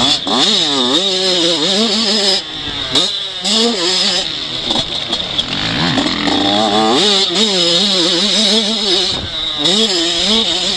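Yamaha 85cc two-stroke motocross bike's engine, heard from on board, revving up and falling back over and over as the rider works the throttle and gears around the track.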